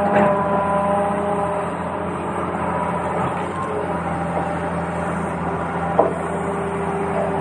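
Steady whirring of a small motor, as from a toy excavator, with a sharp plastic knock at the start and another about six seconds in.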